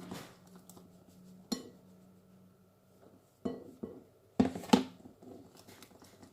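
A few sharp knocks and clinks against a mixing bowl as ghriba dough is mixed, the loudest pair about two thirds of the way through, over a faint steady hum.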